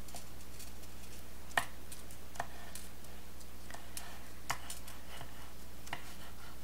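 A few light, scattered taps and clicks of a small plastic craft tool pressed along card and acetate on a cutting mat, over a faint steady hum.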